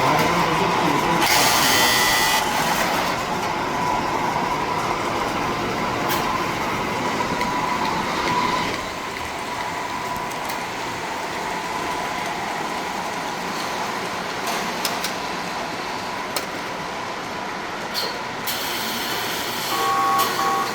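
Model trains running on a miniature layout: a steady whir of small motors and wheels on track with a faint steady hum. The sound eases off a little about eight seconds in.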